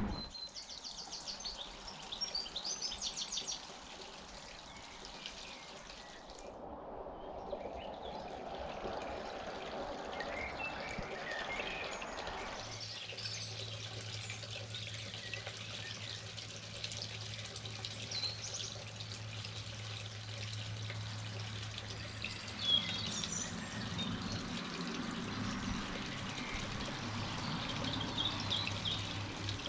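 Quiet trickling and dripping water at a garden pond just after rain, with small birds chirping. A steady low hum comes in a little before halfway.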